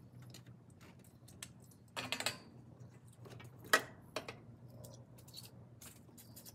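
Short hisses of an aerosol can of brake cleaner sprayed into the engine block's head-bolt holes to flush out oil and debris, with small clicks from handling the can. The two loudest bursts come about two seconds in and just before four seconds in.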